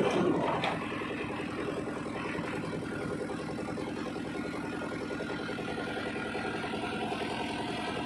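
A diesel engine idling steadily, with an even firing pulse.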